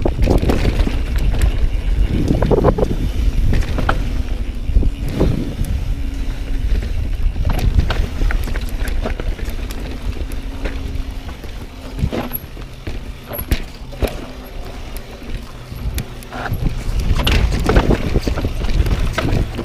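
Pivot Firebird mountain bike descending a rocky downhill trail: a steady rumble of tyres and wind on the microphone, with frequent rattles and sharp knocks as the bike hits the rocks.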